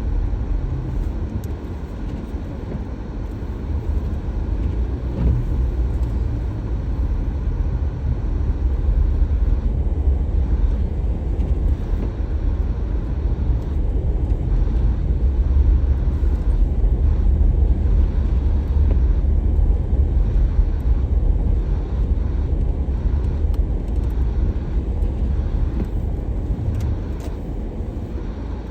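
Steady low rumble of a car being driven: engine and road noise, swelling and easing slightly in loudness.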